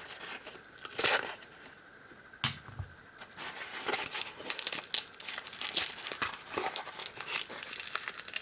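Cardboard packaging being torn open and crinkled by hand: one sharp rip about a second in, then a run of rapid crinkling and tearing from about two and a half seconds on.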